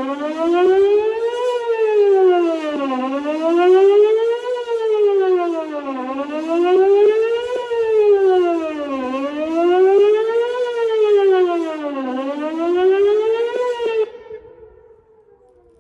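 Whelen WPS-2910 electronic outdoor warning siren sounding its wail test tone, rising and falling evenly about every three seconds. It cuts off about fourteen seconds in, leaving only a faint wail. The uploader judges from its loudness that about 8 of its 10 speakers are working.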